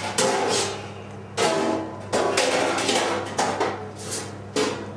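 Metal kitchen pans and containers clattering as they are handled, a series of sharp knocks with short ringing tails, over a steady low hum.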